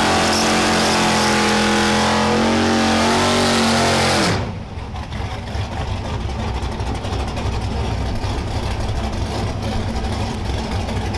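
Drag car's engine held at high revs with heavy hiss, as in a burnout, the note rising slightly before it cuts off sharply about four seconds in. After that the engine rumbles low and rough at idle.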